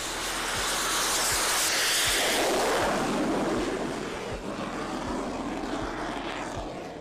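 T-45 Goshawk's Rolls-Royce Adour turbofan at full power during a carrier catapult launch: a roar that builds to its loudest about two seconds in, then slowly fades as the jet flies off.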